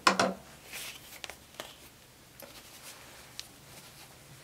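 Handling of cloth strips: a short loud scrape right at the start, then faint rustling and a few light taps and clicks as fabric strips are sorted.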